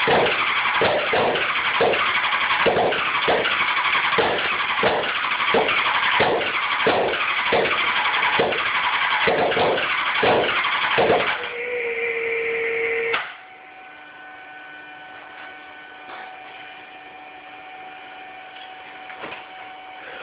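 Honda CBR600F4 inline-four being cranked on its electric starter without catching: a no-start. The cranking churns in an even rhythm of about two beats a second, turns into a steady whine near 12 seconds, and stops about 13 seconds in, leaving a faint steady hum and a few light clicks.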